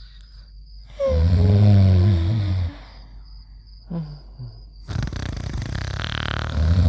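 Snoring: a loud rumbling snore about a second in, a faint high whistle in the pause after it, and another snore starting near the end.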